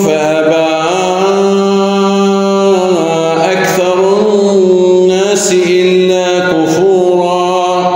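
A man chanting the Quran in melodic tajweed style, drawing out long held notes that waver and turn in pitch with little break.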